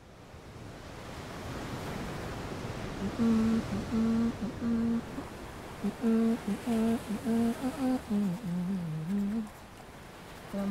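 A woman humming a slow melody in short held phrases, beginning about three seconds in, over a steady wash of sea surf that fades up at the start.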